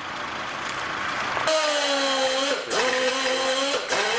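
A hand-held, hose-fed power tool worked on a piece held in a bench vise starts about a second and a half in: a loud rush of noise with a steady whine, its pitch dipping briefly twice.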